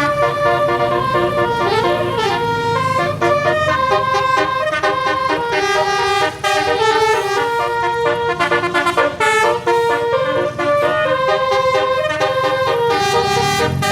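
Alfarizi bus's telolet multi-tone horn playing a fast tune of stepped notes, with a quick down-and-up pitch sweep about two seconds in.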